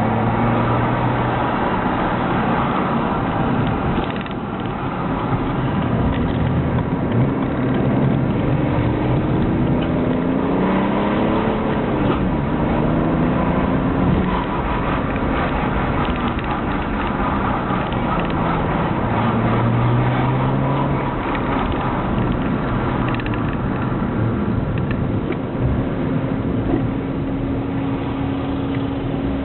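BMW E90 six-cylinder diesel with a straight-piped cat-back exhaust and no silencer, heard from inside the cabin while driving. The engine note rises and falls with acceleration and gear changes, then settles to a steady drone near the end.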